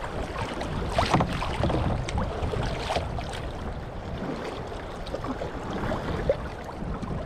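Water splashing and lapping against a kayak's hull as it moves through choppy river current, with irregular louder splashes.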